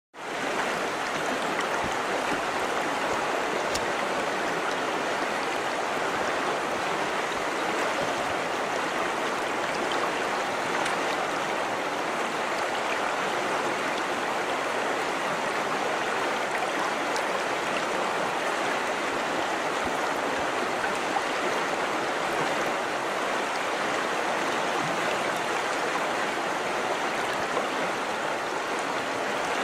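A river flowing over stones in a steady, even rush of water.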